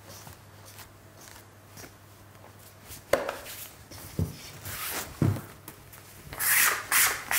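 Dry flour, salt and yeast being mixed by hand in a stainless steel bowl on a wooden worktop: faint rubbing, then three dull knocks about a second apart, and a louder rustling near the end.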